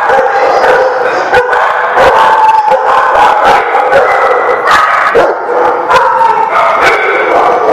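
A loud, unbroken din of many dogs barking, yipping and howling over one another, with sharp single barks cutting through held howls.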